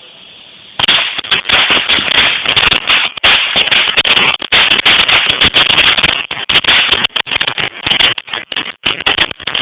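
A small consumer firework going off in a dense, rapid, continuous string of crackling pops that starts about a second in.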